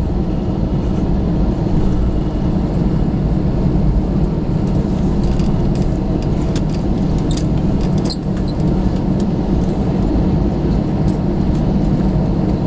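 Steady low hum inside an Airbus A321 cabin, the jet engines and air system running evenly, with a few faint clicks around the middle.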